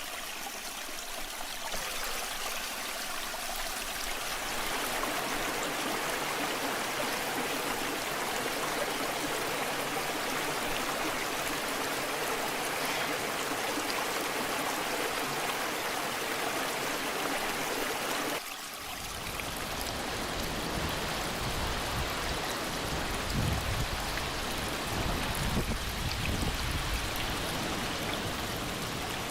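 Waterfall water rushing steadily. About 18 seconds in, the sound changes abruptly to a deeper rush with more low rumble.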